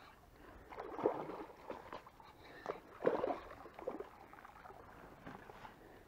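A hooked fish splashing and thrashing in shallow water as it is reeled to the bank, with two bigger splashes about one and three seconds in and smaller ones between.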